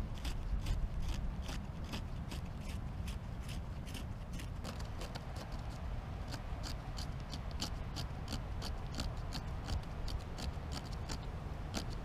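Knife blade scraping down a wooden stick in quick, even strokes, about three a second, shaving the wood for fire-lighting.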